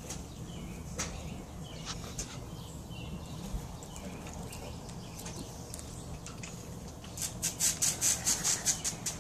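A cockatoo up against the aviary wire close to the microphone: scattered clicks and scratches, then a quick run of about a dozen sharp clicks over the last two seconds.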